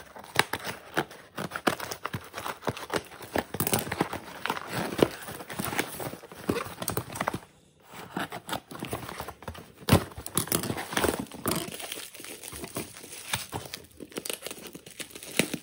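Scissors snipping and cutting through a cardboard box, with the cardboard tearing and scraping as it is opened. Near the end comes the crinkle of bubble wrap being handled.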